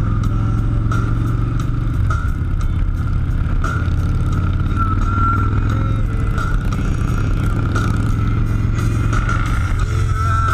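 A motor vehicle running steadily: a continuous low engine drone with no clear change in speed.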